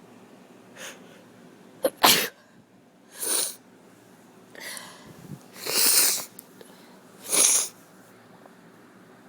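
A person with a cold sneezing several times in a row: about four loud sneezes, a second or two apart, with fainter breaths drawn in between.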